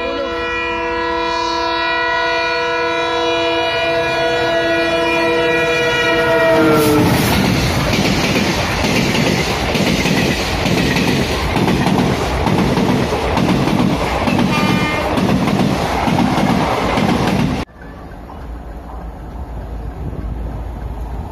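Indian Railways express train passing close by on its horn: a long multi-tone horn blast that drops in pitch as the locomotive goes past, then the coaches rumbling through with a regular wheel clatter over the rail joints and a brief horn toot. Near the end it cuts suddenly to a quieter rumble of a train approaching from a distance.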